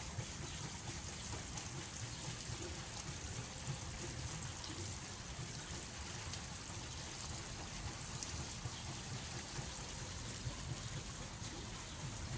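Small stone garden fountain, its water jet bubbling and splashing steadily, with a low rumble underneath.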